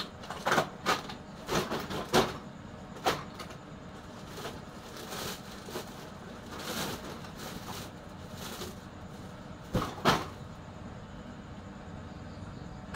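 Used computer motherboards knocking and clattering against each other as they are pushed into a woven plastic sack, with the sack rustling. The knocks come in a quick cluster over the first few seconds, then softer rustling, then two loud knocks about ten seconds in.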